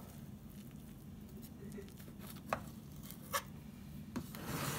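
A knife cutting through a soft glazed cake in a metal baking pan, with three sharp clicks in the second half as the blade knocks the pan, and a louder rush of noise near the end.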